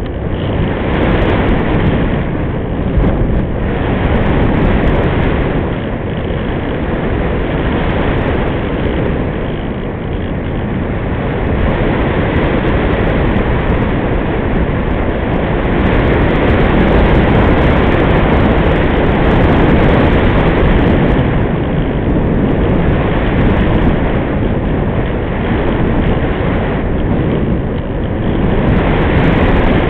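Airflow rushing over the microphone of a small camera riding on a foam RC glider in flight: a loud, even rush of wind noise that swells and eases, louder for a few seconds around the middle.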